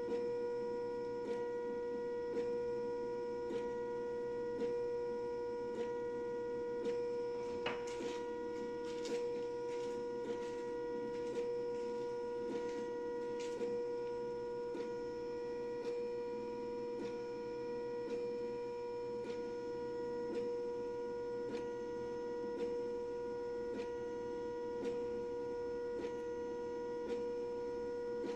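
Océ PlotWave 300 wide-format printer-scanner running with a steady, high-pitched hum and a light tick about once a second, as it works through its roughly ten-minute calibration. A run of sharper clicks comes between about eight and fourteen seconds in.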